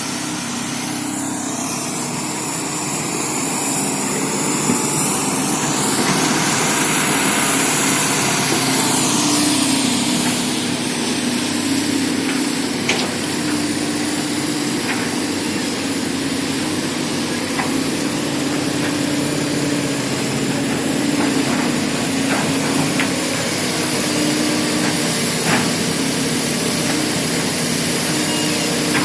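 Hydraulic excavators at work: diesel engines running steadily, with a high whine that rises and falls over the first ten seconds and a few short knocks later on.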